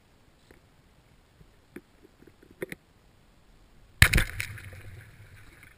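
Speargun firing underwater: a single sudden loud crack about four seconds in, followed by a rushing noise that fades over about a second and a half. A few faint clicks come before it.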